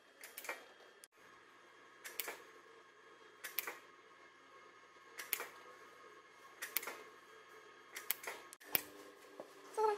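RF microneedle handpiece firing its needle cartridge into the skin, one shot after another. Each shot is a sharp click, often doubled, coming about every one and a half seconds.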